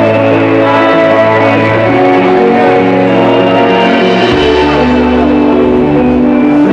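Live band playing loud and steady: keyboard, electric guitar, electric bass and drums in a stretch without singing, the bass moving to a lower note about four seconds in.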